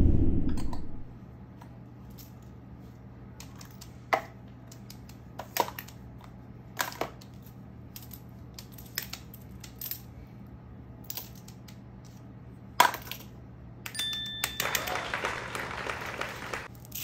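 Plastic fidget toys being handled: scattered sharp clicks and taps over a steady low hum, with a longer stretch of rustling about two-thirds of the way in. It opens on the fading tail of a loud thump.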